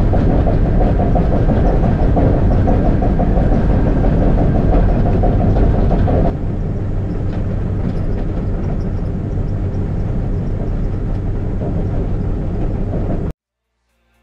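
Steady in-cab running noise of a Cat D11 dozer travelling in second gear. About six seconds in it cuts to the same run with final-drive sound dampers fitted: quieter, with less of the higher-pitched noise. It stops abruptly near the end.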